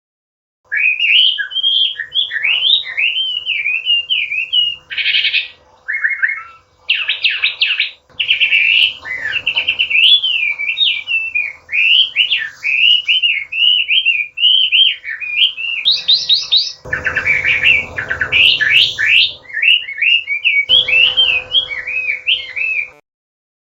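Chinese hwamei singing a long, unbroken run of loud, varied whistled phrases that glide up and down. It starts about a second in and stops shortly before the end, with a faint steady hum underneath.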